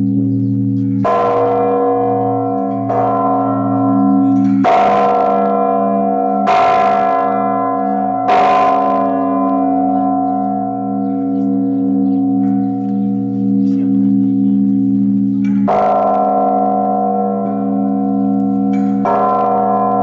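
Large, newly consecrated Orthodox church bell struck by its clapper, which is pulled on a rope by hand. It rings about seven strokes at uneven intervals, with a long gap in the middle where the deep hum rings on.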